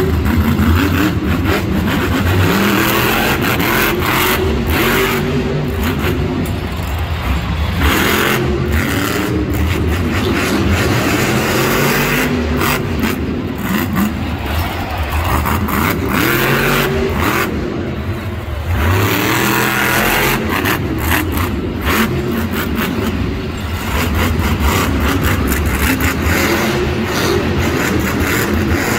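Loud monster truck supercharged V8 revving up and down over and over, with a few brief drops in throttle.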